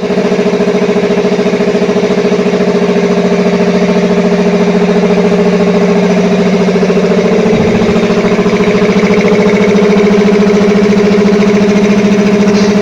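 A 7.5 hp air compressor on a 300-litre tank, driven by a Crompton electric motor, running steadily: a low hum with a fast, even pulsing from the pump.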